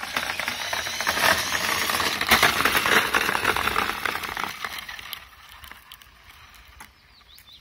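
Small hard wheels of a Razor electric scooter crunching and rattling over loose gravel as it rolls by close, loudest about one to three seconds in and fading away after about five seconds.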